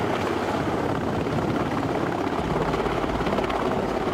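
Navy MH-60 Seahawk helicopter hovering low over a ship's deck, a steady rotor beat and turbine noise while it holds position for a vertical-replenishment sling load to be hooked on.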